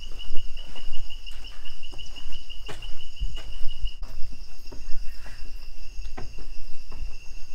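Rainforest insects calling steadily in a high, fast-pulsing trill that smooths into an even tone about four seconds in, with a second, higher chorus behind it. Scattered close knocks and thumps sound over it.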